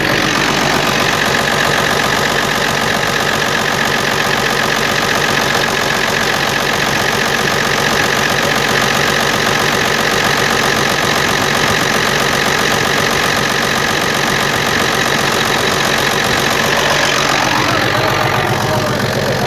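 FNM 180 truck's diesel engine idling steadily, running again after years parked.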